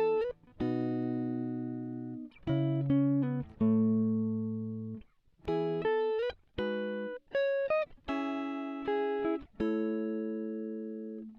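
Background music: a guitar plays a run of chords, each struck and left to ring out and fade before the next, with a few sliding notes between them.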